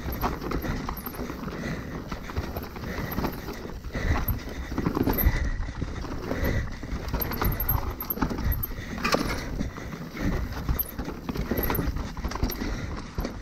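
Mountain bike riding fast down a dirt singletrack: tyres rumbling over the ground, with irregular knocks and rattles of the bike over bumps and roots.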